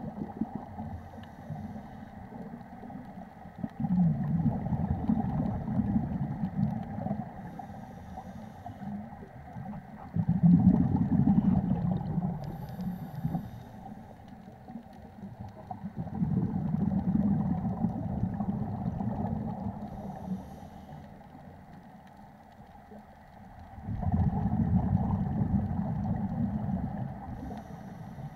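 Scuba diver breathing through a regulator underwater: a low bubbling rumble of exhaled air swells four times, about every six to eight seconds, over a steady underwater hum.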